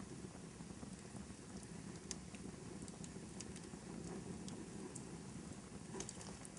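Fireplace fire crackling: a steady low rumble of burning wood with scattered small pops and snaps, a few of them close together near the end.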